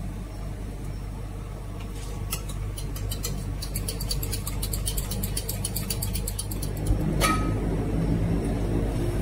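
A spoon stirring quickly in a small steel mug, a fast run of light metallic clinks, then a handheld electric milk frother whirring in the mug near the end, over a steady low background hum.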